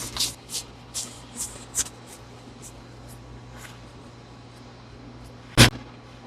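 A single sharp crack during a chiropractic adjustment, about five and a half seconds in and the loudest sound. Before it, in the first two seconds, come a few light clicks and rustles of handling, over a steady low hum.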